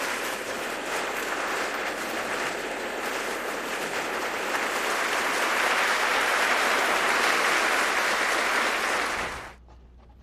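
Audience applauding steadily, cutting off abruptly about nine and a half seconds in.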